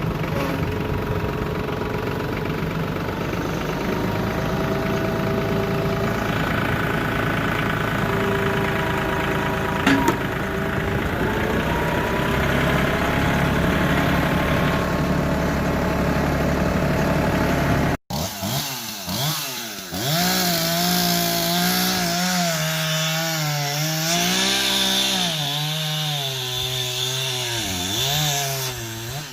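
Stihl chainsaw running and cutting wood. After a break about 18 seconds in, its engine note repeatedly dips and rises as the chain loads up in the cut.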